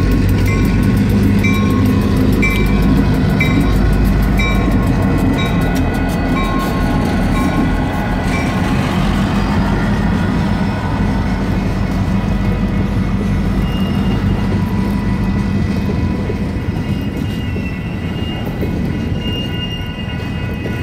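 Union Pacific GP40-2 and GP38-2 diesel-electric locomotives rumble slowly past, then freight cars roll by behind them. Electronic grade-crossing bells keep a rapid repeating ding over the engines.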